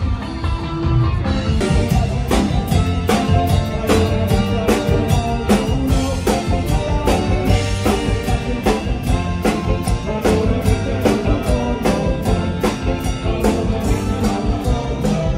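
Live band playing through an outdoor PA system, with a drum kit keeping a steady beat under guitars.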